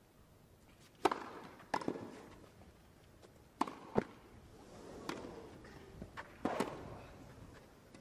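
Tennis rally on a grass court: a ball struck back and forth by rackets and bouncing, about seven sharp, separate pops spread over several seconds, with the crowd hushed.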